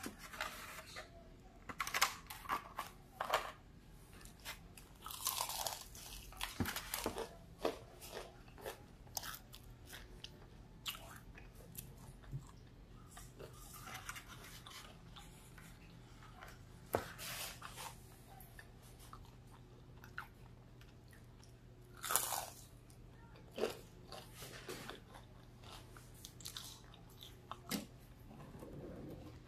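Close-miked eating of crispy breaded fried fish: irregular crunching bites and chewing, with bursts of crackle scattered throughout.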